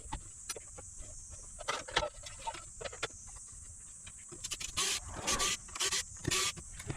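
Handling noises at a workbench: scattered clicks and short scraping, rustling bursts, with several louder ones in the second half, over a steady faint high hiss.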